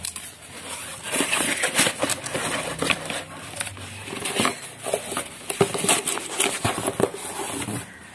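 Scissors snipping packing tape on a cardboard parcel, and the cardboard and tape crackling and rustling as the wrapping is pulled open, in many irregular sharp clicks.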